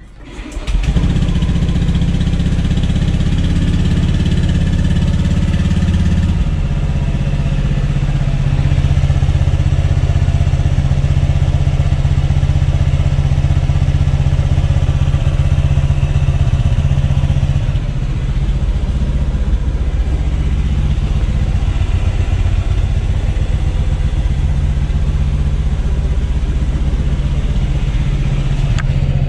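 Engine of a fuel-injected Honda scooter starting up about half a second in, then idling steadily on fresh engine oil with an oil additive.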